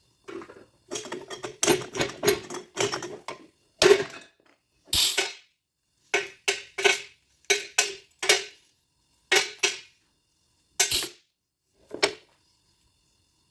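A series of about fifteen short scrapes and knocks from hand work on a lead-acid UPS battery. They come in irregular strokes, some in quick runs and others singly with pauses, and stop about twelve seconds in.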